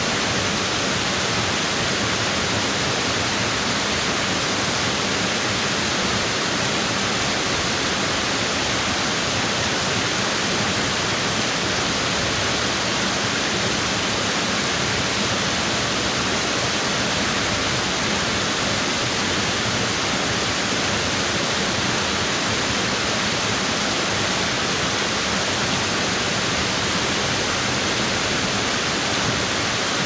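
Wide, low waterfall spilling in several strands over a long rock ledge into a pool, a steady, even rush of falling water with the flow somewhat low.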